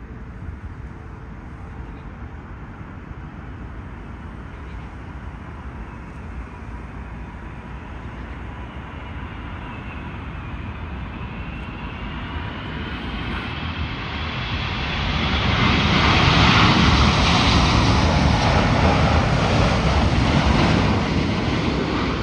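Airbus A380's four Engine Alliance GP7200 turbofans on final approach, gear down. A steady engine rumble with a high whine grows louder as the aircraft comes closer, is loudest for several seconds in the second half as it passes, then eases off.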